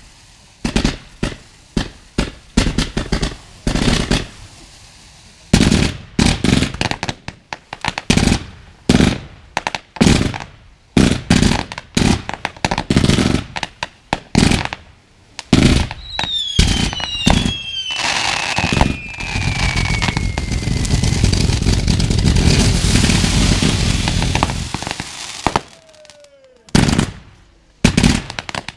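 Fireworks firing from the ground: a rapid series of bangs. Just past the middle come several falling whistles, followed by several seconds of dense crackling, with one more low falling whistle near the end.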